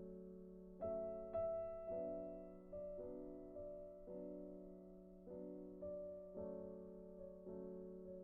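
Background piano music: slow notes or chords struck about once or twice a second, each dying away.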